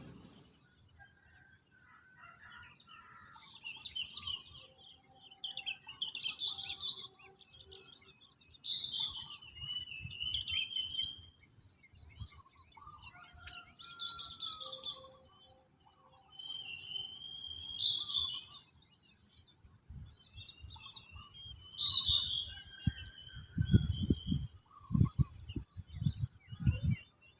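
Wild birds singing: short whistled phrases, repeated every few seconds, with fainter calls between. A few low thumps come near the end.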